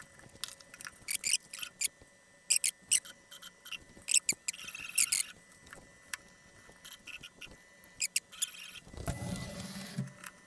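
Stiff gasket paper crinkling and rustling as it is pressed flat on a CNC router's aluminium bed, with light clicks and knocks of steel bars and plates being laid on it to hold it down. A longer rubbing, scraping noise about nine seconds in.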